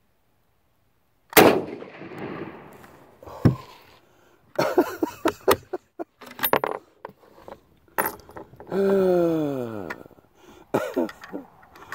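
A single rifle shot from a 6.5 mm Carcano M38 carbine about a second and a half in, ringing out and dying away over a couple of seconds. After it come metallic clicks of the bolt being worked and a man laughing, with one long falling vocal sound near the end.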